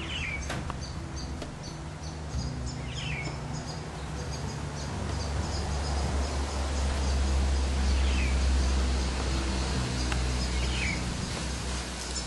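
Countryside ambience of birds and insects: a high, rhythmic chirping repeating a couple of times a second, with four short falling bird calls, over a steady low rumble.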